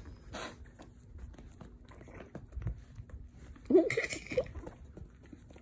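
Chihuahua licking and nibbling a man's face, with many small wet clicks and smacks. A short voice sound comes about four seconds in.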